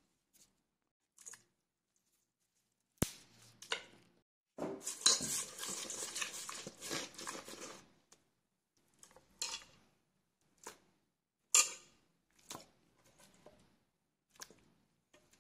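Stirring and scraping a thick yogurt-and-spice marinade around a stainless steel bowl for a few seconds, then a series of separate clinks and taps against the bowl. A single sharp click comes before the stirring.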